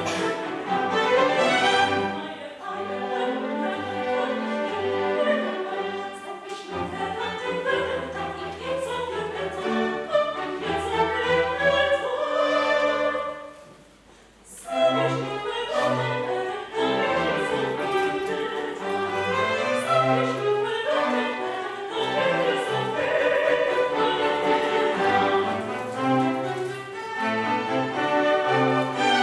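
Operatic soprano singing with a chamber string orchestra of violins, violas and cellos. About halfway through, a long held note breaks off into a brief near-pause, then voice and strings come back in together.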